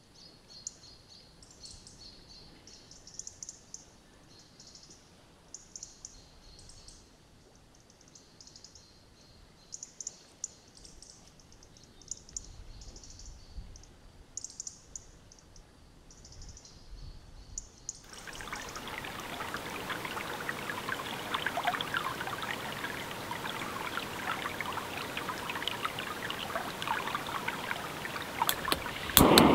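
Small birds singing quietly in short, high-pitched chirping phrases. About 18 seconds in, the sound switches abruptly to a louder, steady pattering rush of water.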